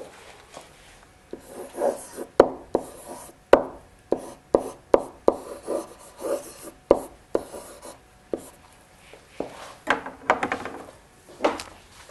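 A pen writing by hand on paper: a string of short scratching strokes and sharp taps as a word is written out.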